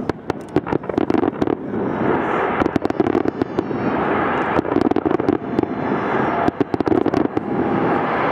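Aerial fireworks going off in a rapid string of sharp bangs and crackles, densest in the first few seconds and then thinning to scattered reports.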